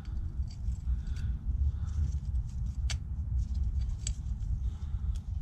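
Small clicks and scrapes of brake pads being handled and seated in a motorcycle rear brake caliper, with a sharper click about three seconds in and another about a second later, over a steady low rumble.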